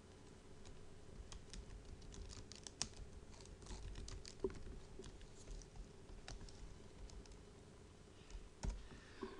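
Typing on a computer keyboard: a run of faint, irregularly spaced keystroke clicks.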